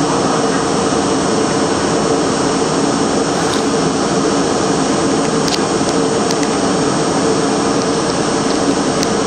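Steady drone of a stopped New York City subway car's onboard machinery, with a constant hum running under the noise, heard from inside the front of the car. A few faint clicks about five and a half and nine seconds in.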